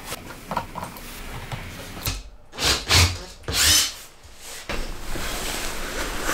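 Wooden parts and a plywood board being handled on a workbench: a few light taps, then three louder short scrapes and knocks of wood on wood in the middle.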